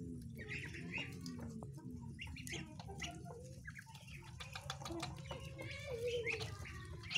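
A flock of Muscovy ducks and a chicken pecking at mash on a stone slab: many quick clicks of bills striking feed and stone, mixed with short clucking calls from the birds.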